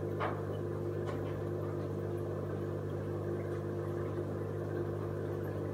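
Steady low electrical hum of running aquarium equipment, with two faint clicks in the first second or so.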